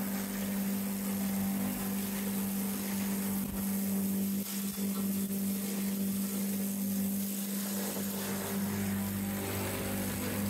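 Woodlandia LL-41.600 log lathe's milling motor and cutter head running steadily under load with a constant hum and a hiss of cutting, rounding a raw bark log into a cylindrical house log.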